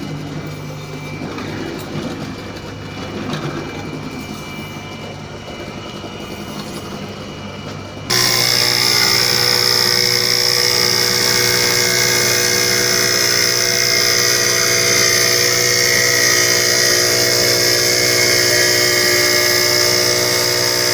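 Ceramic tile cutting machine's motor running with a steady hum. About eight seconds in, the sound jumps abruptly much louder, adding a steady high whine and hiss that holds.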